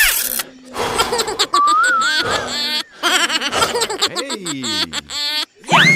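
A quick string of edited cartoon sound-effect clips, mostly laughter, with a falling pitched glide about four seconds in.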